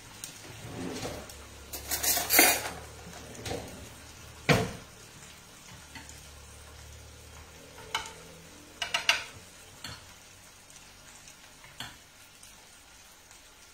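A spoon scraping and clinking against a bowl and plate as sauce is spooned onto plated salmon, in scattered separate knocks and scrapes, the sharpest one about four and a half seconds in.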